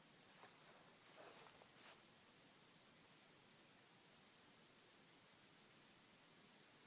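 Near silence, with a faint high chirping, likely an insect, repeating about three times a second, and a few faint clicks in the first two seconds.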